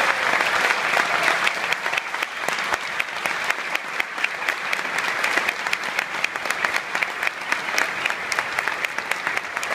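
Large concert-hall audience applauding after the final chord: dense clapping that eases a little after about two seconds into more distinct individual claps.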